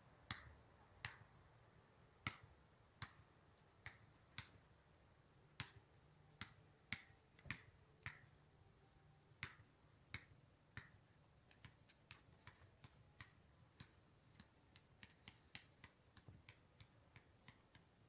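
A series of short, sharp clicks at irregular spacing over near silence, louder and about one a second in the first half, then fainter and closer together, two or three a second, in the second half.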